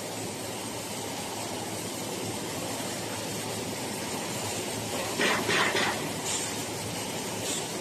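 Steady hissing background noise of a factory floor, with a few short, brighter rasping sounds about five to six seconds in and another near the end.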